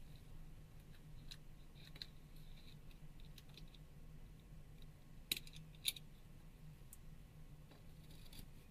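Faint small clicks and taps of tools and small phone parts being handled, with two sharper clicks about five and six seconds in, over a faint steady low hum.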